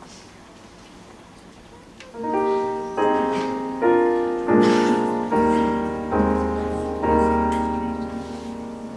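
Piano playing a slow series of chords, about seven struck roughly a second apart, each ringing and fading. Deep bass notes join about halfway through. The first two seconds hold only faint room noise.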